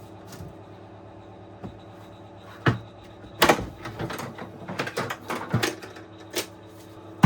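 Plastic clips on an induction hob's plastic air ducting being released, with the ducting clicking and knocking as it is worked loose. A run of sharp clicks and knocks, loudest about three and a half seconds in.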